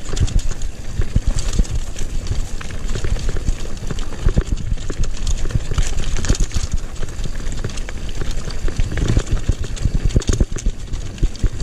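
Mountain bike clattering down a stony dirt trail: tyres hitting stones and the bike rattling in a rapid, irregular stream of knocks over a steady rumble, picked up by a GoPro 5 action camera riding along.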